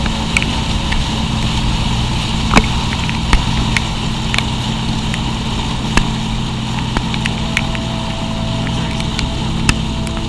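A car engine running steadily while driving, with scattered sharp clicks over it.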